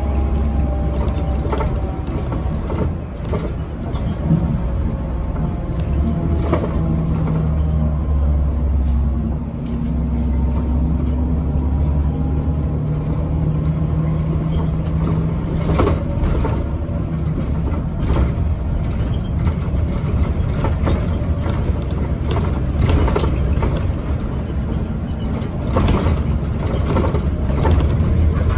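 Inside a 2012 NABI Metro 45C CNG transit bus underway: the steady low drone of its Cummins Westport L9N natural-gas engine, with engine and drivetrain whine slowly rising and falling in pitch. Frequent short rattles and knocks come from the cabin.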